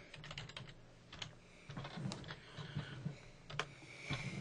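Faint computer keyboard typing: a scatter of separate key clicks as a short word is typed.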